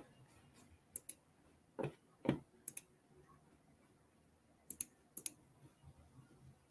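Faint scattered clicks of a computer mouse and keyboard, several of them in quick pairs like double-clicks.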